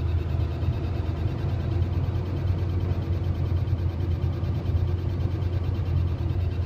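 Steady low engine and road rumble heard from inside a vehicle's cab while driving.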